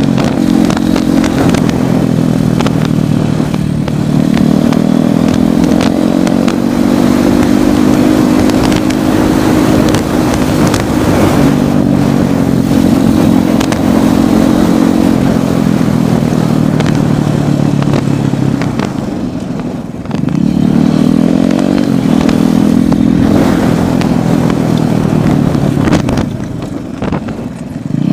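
Royal Enfield Thunderbird's single-cylinder engine running while riding, its pitch rising and falling with the throttle. It eases off and drops in pitch about two-thirds of the way through, picks up again, then eases off once more near the end.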